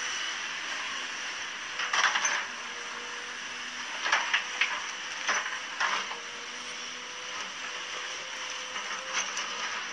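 XCMG hydraulic crawler excavator running steadily, with loud clattering crashes of broken rock under its bucket as it digs into a rock pile, about two seconds in, several between four and six seconds, and again near the end.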